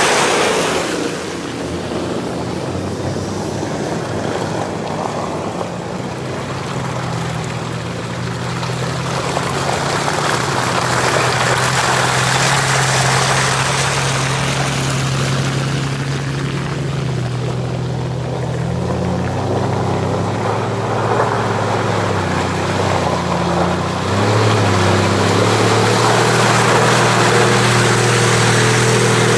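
4x4 SUV engines running as the vehicles drive through a flooded, muddy track, with tyres splashing through water. A low engine drone builds from about a quarter of the way in and is loudest near the end, as a vehicle passes close.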